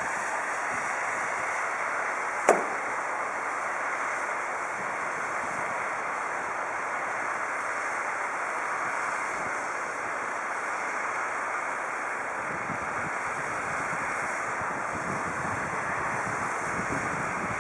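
Steady rushing noise with one sharp knock about two and a half seconds in.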